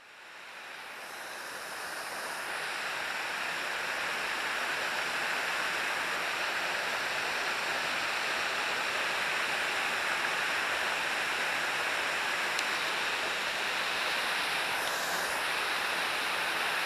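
Steady rush of a small creek waterfall spilling into a rock pool, fading in over the first couple of seconds.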